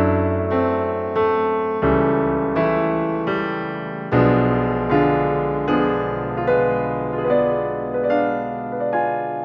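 Background piano music: slow, gentle notes or chords struck about every 0.7 seconds, each fading before the next, with the bass changing every couple of seconds.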